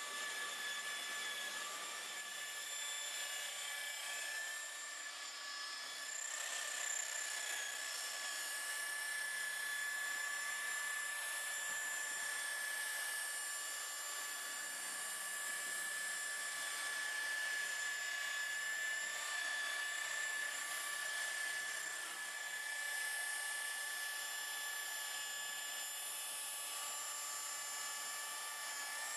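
Electric rotary polisher (buffer) running steadily with a high, even whine, its spinning pad buffing car paint and trim.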